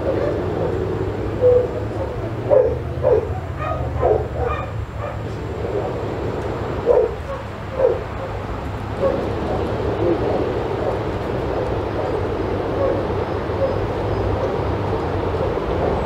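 A dog barking, about seven short barks mostly in the first half, over a steady low background rumble.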